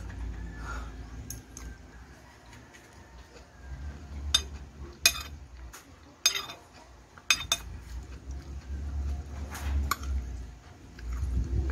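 Metal spoon clinking and scraping against a plate while scooping rice and curry, with about six sharp clinks spread over several seconds, starting about four seconds in.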